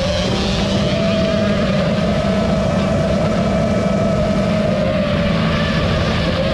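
FPV drone's electric motors and propellers buzzing loudly and steadily, the pitch wavering slightly as the drone throttles while chasing a dirt bike.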